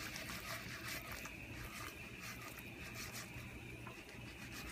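Chicken and diced peppers sizzling faintly in a frying pan, a steady crackling hiss.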